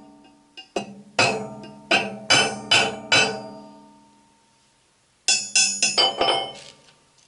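Hammer blows on steel that ring on after each strike: an evenly paced run of about seven blows, a pause, then a quick flurry of about six lighter, faster blows.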